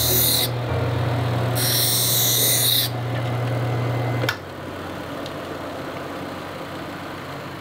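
Hand lens edger's grinding wheel running with a steady low hum while a plastic eyeglass lens edge is pressed against it, giving a high hissing grind that stops about half a second in and returns for about a second and a half around two seconds in. The machine then cuts off with a click a little past four seconds.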